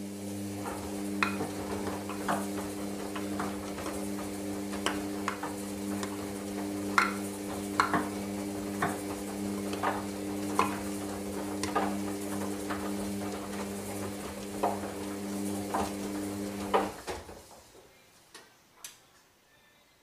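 A Hoover Dynamic Next washing machine's drum motor hums steadily as the drum tumbles the wash, with water swishing and irregular clicks and knocks from the load about once a second. The motor stops about 17 seconds in and the drum comes to rest with a few last clicks.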